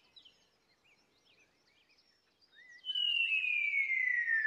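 Faint birdsong chirping, then about three seconds in a loud whistle tone starts and slides slowly and steadily down in pitch: a cartoon falling sound effect for an object dropping from the sky.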